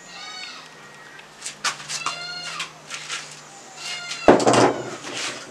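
Animal calls: several drawn-out cries that rise and fall in pitch, with a loud sudden knock about four seconds in.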